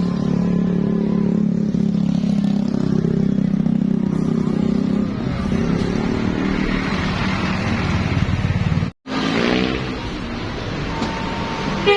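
Bus passing close by: a loud, deep, steady drone for about the first five seconds, then engine and road noise. After a sudden break, an engine revs up.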